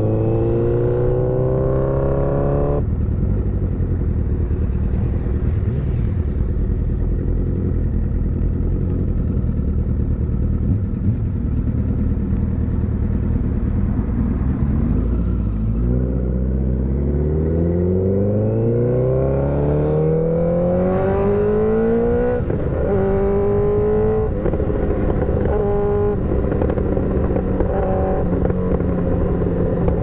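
Motorcycle engine under way: its note rises as it accelerates, drops at a gear change about three seconds in, and holds steady for a while. From about halfway through it climbs again, with more gear changes near the end.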